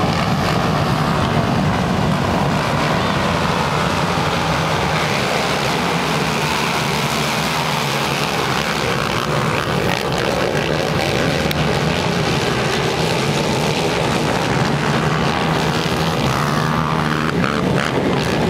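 A full field of racing ATV (quad) engines revving hard together as the pack launches off the start line and races into the first turn, a steady, loud, overlapping engine noise.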